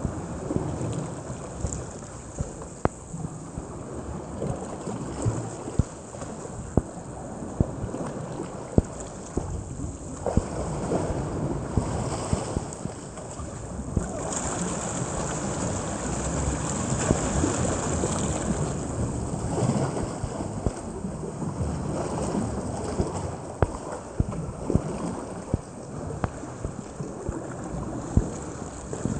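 Inflatable raft being paddled through calm water: paddles splashing, with irregular sharp knocks throughout and a rushing noise that grows louder in the middle.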